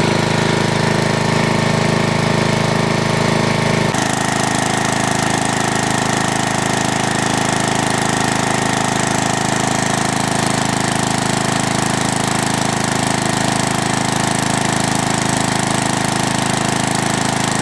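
Small air-cooled gasoline engine running steadily while it drives a generator under an electrical load. Its sound changes abruptly about four seconds in.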